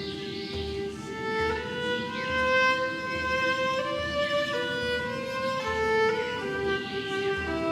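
Violin playing a slow melody of long held notes that step from pitch to pitch, over a soft, steady low beat about twice a second.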